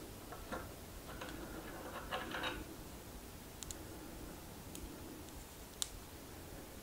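Faint clicking and rustling of small metal axle shims handled between the fingers: a cluster of light clicks in the first two and a half seconds, then three sharp single ticks, the last one the loudest.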